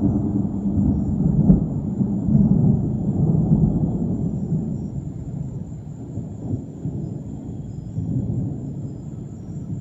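Thunder rolling: a deep rumble, loudest over the first few seconds with a sharper jolt about a second and a half in, then slowly dying away.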